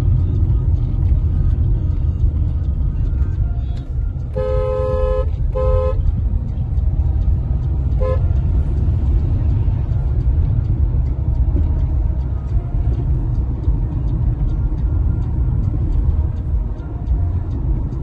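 Car horn sounding: a toot of about a second, a short second toot right after it, and a very brief third toot a couple of seconds later. Underneath is the steady low rumble of engine and road noise inside a moving car's cabin.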